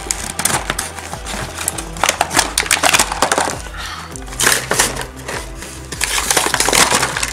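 Plastic blister packaging crinkling and cardboard tearing as a toy is pulled from its box, a dense run of irregular sharp crackles and rustles.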